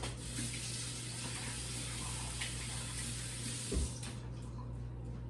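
Water running from a tap into a sink as an even hiss, shut off about four seconds in, with a short low thud just before it stops.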